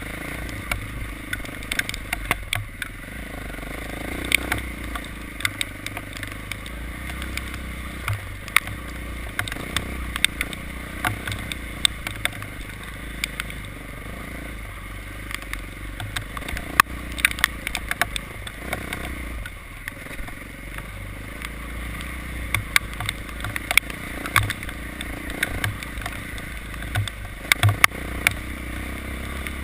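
Vehicle engine running steadily while driving, with frequent irregular sharp ticks and clatters over it.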